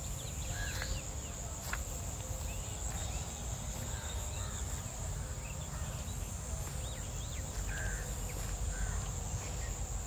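Steady high-pitched insect chirring with short chirps over it, above a low background rumble. A couple of faint clicks come in the first two seconds.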